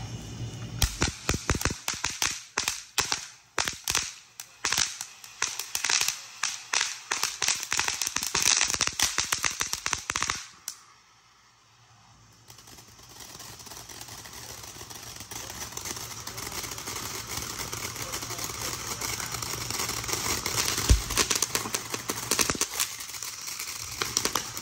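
Ground fountain fireworks going off. First comes a fast, irregular run of sharp crackling pops for about ten seconds. After a short lull, a fountain's steady hissing spray of sparks starts and grows gradually louder.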